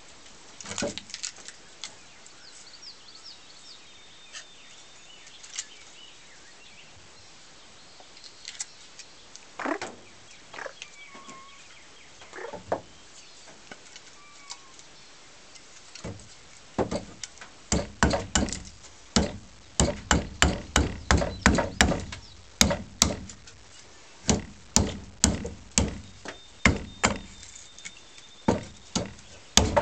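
Side axe hewing a wooden snath grip, its blade striking the wood in sharp chops. A few scattered strikes come first, then from a little past halfway a steady run of strokes, one or two a second and faster in spells.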